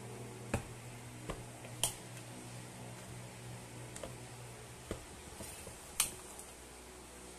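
Sharp plastic clicks as a precision screwdriver pries at the clips and seam of a JBL Flip 5 speaker's plastic housing: a handful of separate clicks, the loudest about six seconds in.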